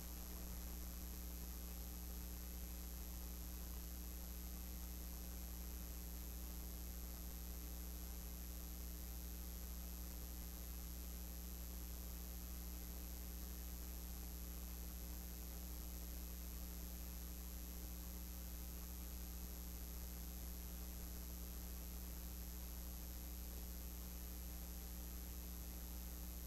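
Steady electrical mains hum with a stack of low overtones, over a constant hiss and a faint high-pitched whine, unchanging throughout.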